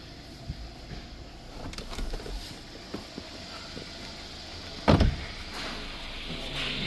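2016 Hyundai Sonata's 2.4-litre petrol four-cylinder engine idling, a steady low hum, with scattered knocks and one loud thump about five seconds in. The idle note gets louder and fuller near the end.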